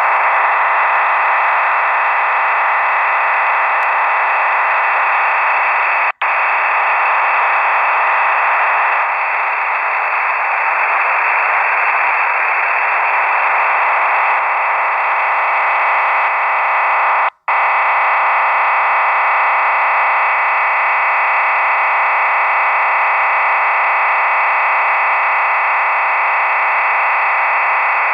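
Unidentified radio signal received through a WebSDR shortwave receiver: a steady, dense hiss-and-buzz filling the receiver's audio band, with many steady tones running through it. It cuts out briefly twice, about six seconds in and again near seventeen seconds.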